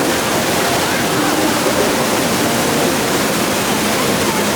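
Steady rushing of water falling at a waterfall.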